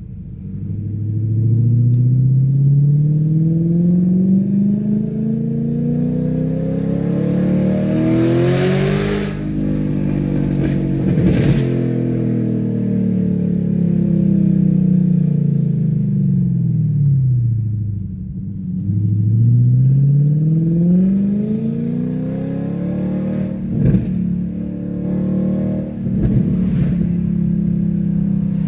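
BMW E39 540i's 4.4-litre V8 running with no exhaust past the primary catalytic converters, heard from inside the cabin. It pulls up through the revs for about nine seconds, winds down slowly as the car coasts, then climbs again near the end, with a few sharp knocks along the way.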